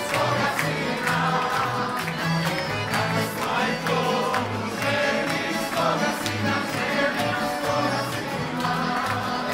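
Accordion and acoustic guitars playing a folk song while a group of guests sing along together and clap in time.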